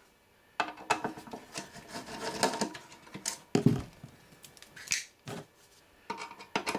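Irregular light clicks and clatter of small hand tools and metal parts being handled while an avionics receiver is taken apart, with a heavier knock about three and a half seconds in.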